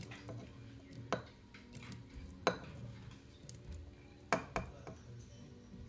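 A spatula scraping shredded chicken off a ceramic plate into a stainless-steel Thermomix bowl, with a few sharp clinks as the spatula knocks against the plate and the bowl's rim.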